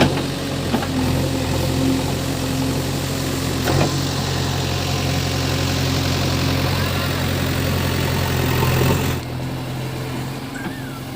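JCB 3DX backhoe loader's diesel engine running steadily, with a couple of sharp knocks; the sound gets quieter about nine seconds in.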